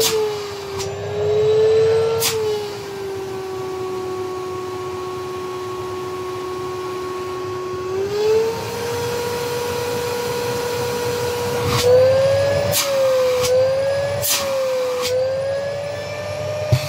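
Philips Universe FC9004 bagged vacuum cleaner's 1700 W motor running with the hose inlet covered and uncovered by hand, so the motor note rises and falls, with a few small knocks. About halfway through, the motor speeds up to a higher steady note as the power dial is turned up.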